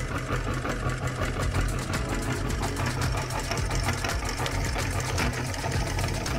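Electric meat grinder running steadily with an empty hopper, its motor humming and the steel auger turning with a fast, continuous rattle.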